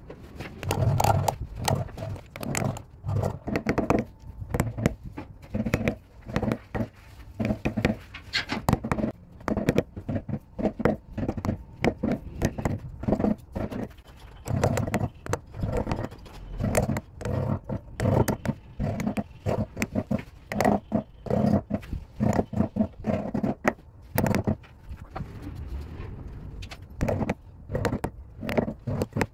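Hand carving gouge cutting and scraping into a turned wooden sphere in a quick run of short, irregular strokes.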